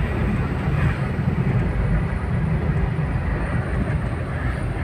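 Steady low rumble of a vehicle on the move: engine and road noise with no distinct events.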